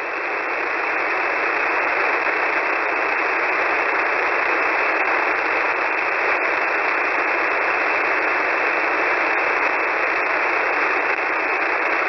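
Steady hiss of static from a shortwave receiver on an empty single-sideband voice channel, narrowed to a voice-width band; it swells slightly over the first second or so and then holds level.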